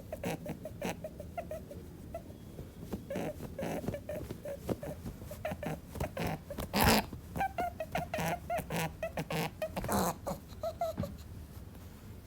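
Angry rabbit making a rapid series of short sounds, some of them brief squeaks, with louder noisy bursts about seven and ten seconds in.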